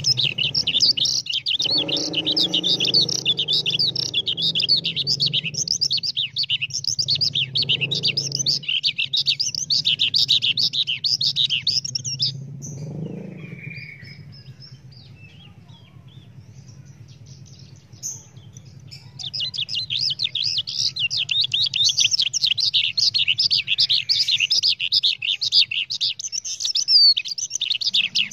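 A caged songbird singing a fast, unbroken stream of high chirps and trills. It stops for several seconds about midway, then sings again. A steady low hum runs underneath.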